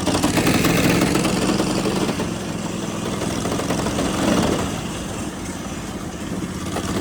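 Go-kart's small engine running steadily, its note easing down and quieter from about five seconds in.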